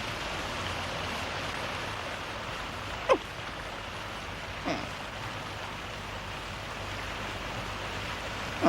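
Busy street crowd ambience: a steady mix of many voices and bustle, broken by three short, falling cries.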